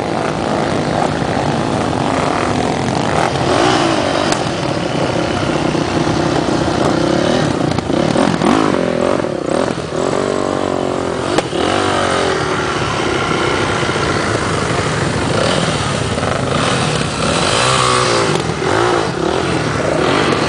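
Off-road motorcycle engines running and revving, the pitch rising and falling several times as the bikes pass. A sharp knock comes about eleven seconds in.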